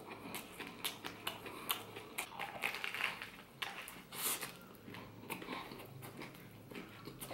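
A person biting into and chewing a banh mi on a crusty baguette, close to the microphone: crisp crunches and crackles of the crust as many short, irregular clicks, with a few louder crunches near the middle.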